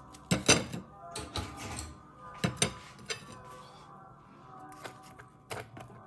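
Clinks and knocks of a table knife and crumpets on a ceramic plate: a sharp clatter about half a second in, two more around one and two and a half seconds, then lighter taps and scrapes of the knife near the end as butter is spread.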